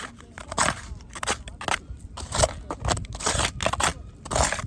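Sand and grit crunching and scraping in a string of short, uneven bursts, several to a second.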